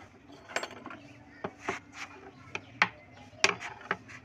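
Small, sharp metal clicks and clinks, about nine, spaced irregularly, as a steel sewing machine feed dog with its screws is handled and set down into place in the machine bed.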